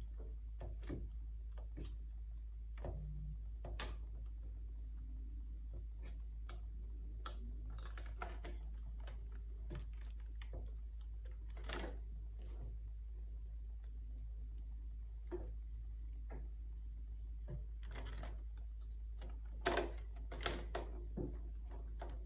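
Scattered small plastic clicks and taps from the hinge cover and keyboard bezel of an HP DV6-2151cl laptop being handled and fitted by hand, over a steady low hum. One sharp click about four seconds in is the loudest, and a quick run of clicks comes near the end.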